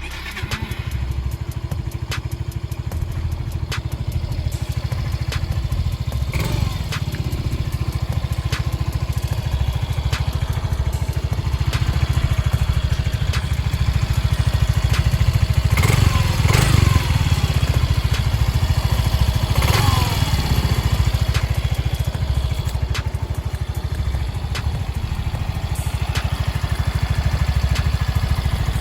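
Yamaha Mio i125S scooter's stock exhaust: its 125 cc single-cylinder four-stroke engine running steadily at idle, a little louder around the middle.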